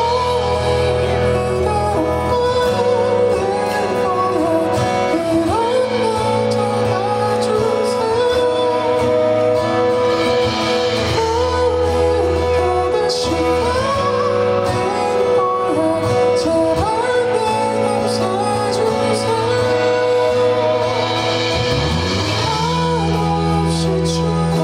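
Live performance of a ballad: a singer over band accompaniment with held bass notes.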